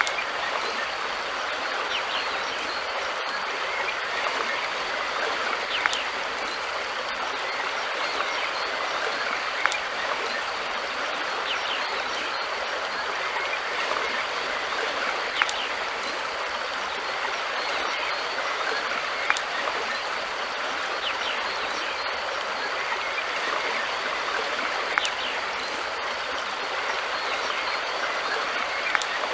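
River water flowing steadily, an even rushing sound, with a brief sharp tick every few seconds.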